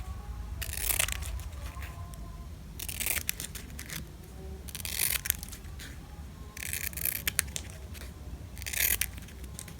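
Scissors cutting glitter ribbon close to the weave: five short crisp snips with a crinkle, about two seconds apart.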